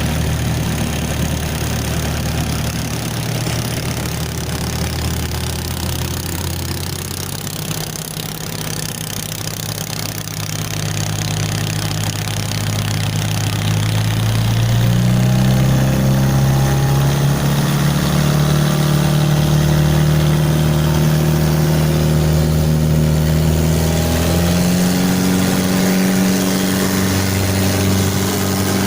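Mitsubishi L300 engine running, its speed climbing in a slow glide about halfway through and stepping up again near the end as the engine speed is raised.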